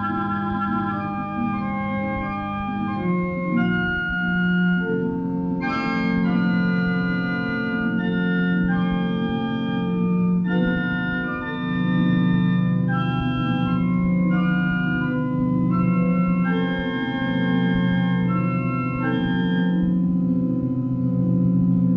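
Organ-sounding keyboard music: held chords and a slow melody that changes note about every second, over a low note that pulses in roughly one-second beats.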